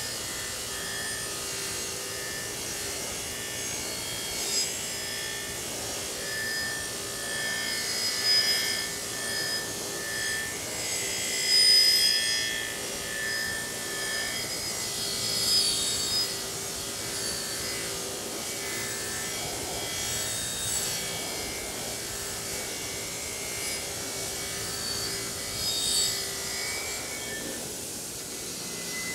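Bench-mounted motor-driven wire wheel scrubbing rust off the steel head of a vintage double bit axe: a steady motor hum under a rough scraping rasp that swells and fades as the head is pressed on and moved about, with several louder surges.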